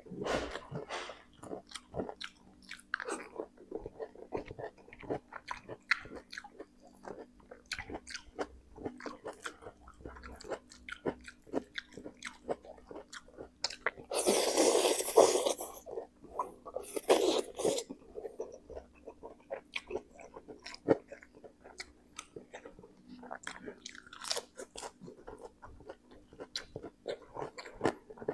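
Close-miked mouth sounds of a man eating spicy Samyang instant noodles: wet chewing and lip smacks throughout, with two loud slurps of noodles around the middle.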